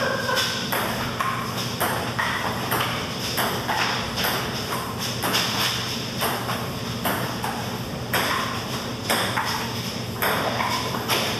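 Table tennis ball clicking off paddles and the table in a fast rally, a hit about every half second.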